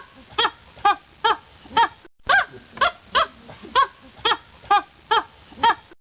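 An animal calling in a rapid series of short, pitched calls, about two a second, with a brief break about two seconds in.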